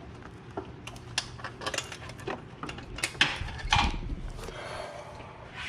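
Hand wrench and socket clicking and clinking against metal in irregular strokes while a binding exhaust manifold bolt is worked loose, with a heavier knock about three and a half seconds in. The bolt is stuck in its threads and the mechanic fears it is stripping.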